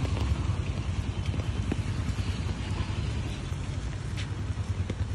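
Wind buffeting the microphone as a steady, fluttering low rumble, over an even hiss of rain falling on the pond.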